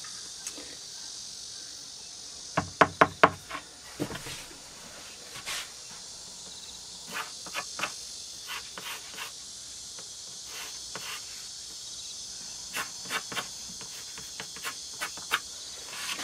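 Light knocks and taps of a large wooden board being shifted and marked on a van's cargo floor, with a quick run of about five knocks near the start and scattered clicks later, over a steady high insect buzz from outside.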